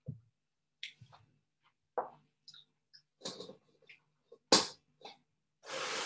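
Kitchen handling sounds on a video call: scattered light clicks and knocks, the loudest a sharp knock about four and a half seconds in, then a short rushing noise near the end.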